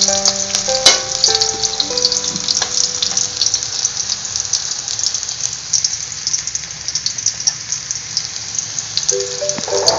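Sliced onions and garlic sizzling and crackling in hot oil in a steel wok, with a metal spatula now and then clicking against the pan. Background music with a simple melody plays over it for the first two seconds and again near the end.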